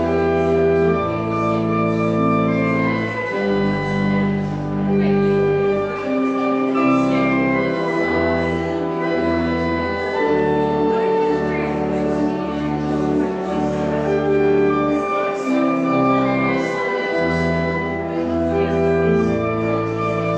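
Church organ playing a closing voluntary after the service: held chords over slow-moving deep bass notes.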